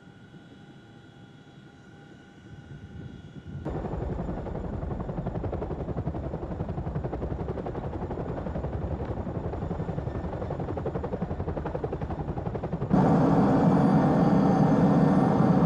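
Chinook tandem-rotor helicopter. At first it is only a faint steady hum with a few held tones. Then it suddenly turns loud: fast rotor-blade chop over engine noise, which jumps louder again about thirteen seconds in.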